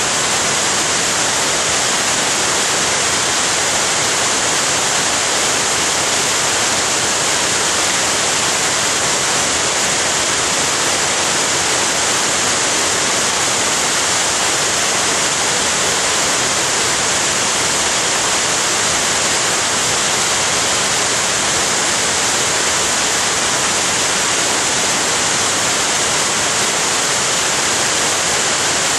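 Waterfall: a loud, steady rush of falling water, even and hissy with no breaks.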